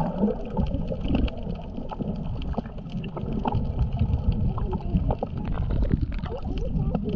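Underwater sound through a camera in a waterproof housing: a muffled low rumble of moving water, with gurgling bubbles and scattered sharp clicks.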